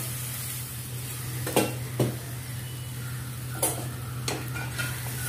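A spoon stirring a watery spice mixture in a kadai on a gas burner. A faint sizzle and a steady low hum run underneath, with about four sharp clinks of the spoon against the pan.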